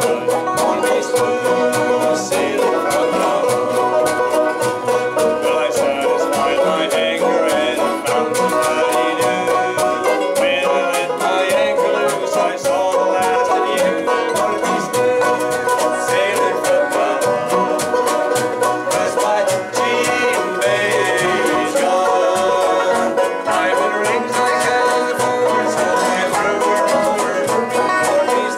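Bluegrass band playing live, with five-string banjos picking over guitar and upright bass.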